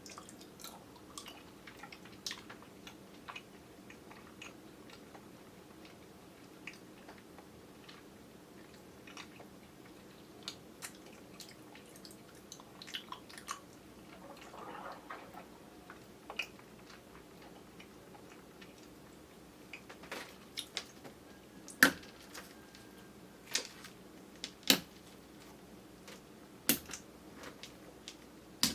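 Chewing of soft, chewy kyoho grape jellies: scattered small wet mouth clicks and smacks, with several louder sharp clicks in the second half. Picked up by a camera's built-in microphone, over a steady low hum.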